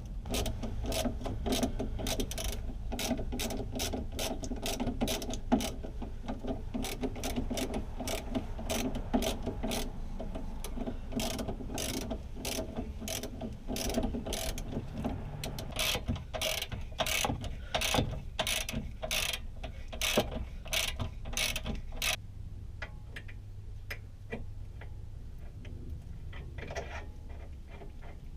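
Hand ratchet wrench clicking in quick runs of strokes as a bolt is turned; the clicking thins to a few scattered clicks about 22 seconds in.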